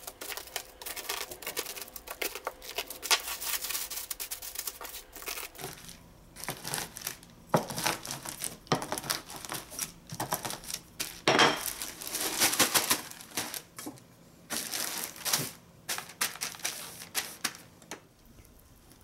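Roasted nuts crackling and a plastic zipper bag crinkling as a wooden rolling pin is pressed back and forth over them to crush them, with a few sharper knocks in between. Near the end, a knife chopping on a cutting board.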